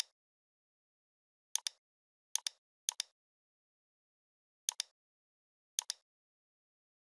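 Computer mouse left button clicking: six quick press-and-release click pairs at irregular intervals, with dead silence between them.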